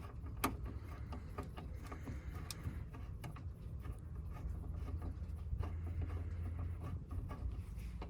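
Faint scattered clicks and knocks of a Ford Mondeo mk4 front door lock assembly being worked loose inside the door, over a steady low hum.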